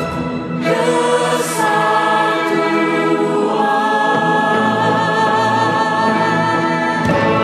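Music: voices singing together like a choir, holding long notes with vibrato, the notes changing a few times.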